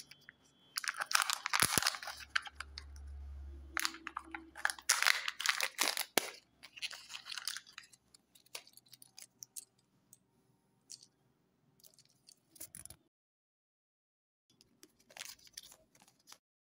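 Crinkling and tearing of a Kinder Joy egg's foil wrapper and plastic capsule being handled by hand, dense for the first several seconds with sharp clicks among it. Sparser handling noises follow, then a brief rustle of the folded paper toy leaflet near the end.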